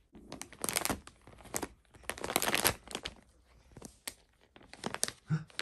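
Plastic treat pouch crinkling and rustling in irregular bursts as a cat claws and bites at it, trying to get at the treats inside. The loudest crinkles come about a second in and again around two and a half seconds.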